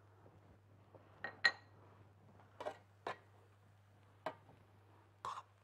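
Scattered clinks and taps of kitchen utensils against pots and a plate, about six in all, the loudest a short ringing clink about one and a half seconds in, over a faint steady low hum.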